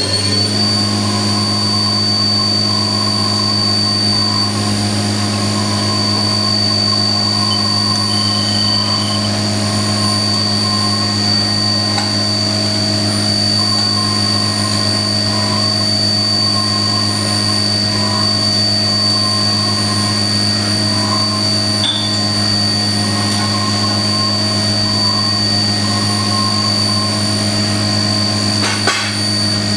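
Haas TM-2 CNC vertical mill running a program, its spindle turning at high speed with a steady high-pitched whine over a low hum.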